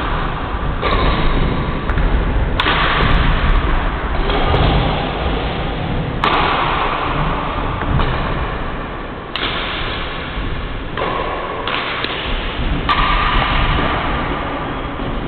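Badminton rally on a wooden court: a few sharp racket strikes on the shuttlecock and footfalls. These sit over a loud, steady hall noise that jumps abruptly louder and quieter every few seconds.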